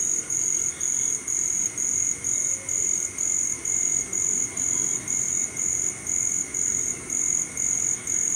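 Crickets chirping in even pulses, about two a second, over a steadier high trill.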